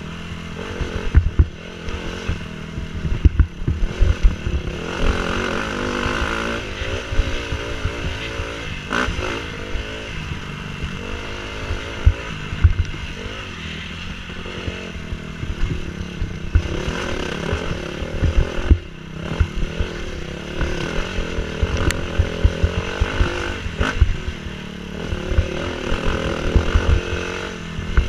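Dirt bike engine running hard along a trail, its revs rising and falling again and again as the rider works the throttle. Frequent short low thumps and knocks run through it.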